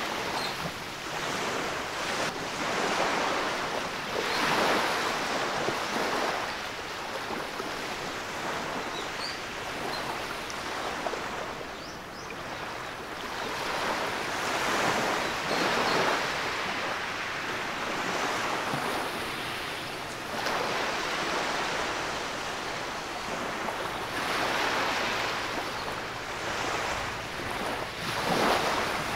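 Small waves breaking at the water's edge and washing up over a sandy beach, the surge of foaming water swelling and fading every few seconds.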